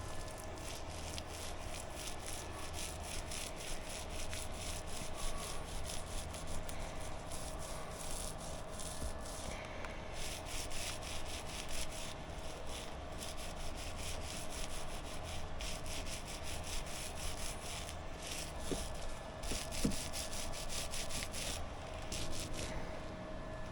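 Rapid back-and-forth rubbing strokes of hand abrasive work, such as sanding, in runs with a few short pauses.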